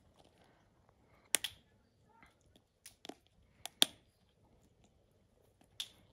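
Animals eating: a handful of sharp, irregular clicks and cracks from biting and chewing berries and peas.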